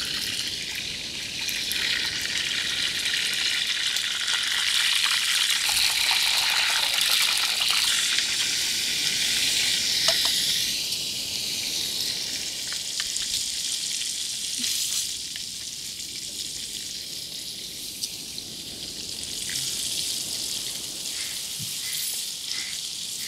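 Masala-coated chicken sizzling in an earthen clay pot, stirred with a wooden spatula. The steady sizzle is strongest for the first ten seconds or so, then dies down.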